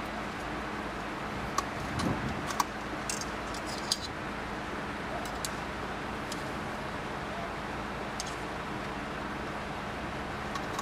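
Small, sharp clicks and ticks of a truck headlamp's H4 bulb, its metal wire retaining clip and plug being fitted back by hand, a few scattered over the first eight seconds, over a steady background hum.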